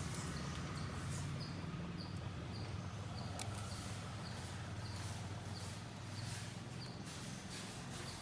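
Tulsi leaves being plucked by hand off their stems, giving a few faint soft snaps. Behind them are a steady low hum and a short high chirp repeating about twice a second.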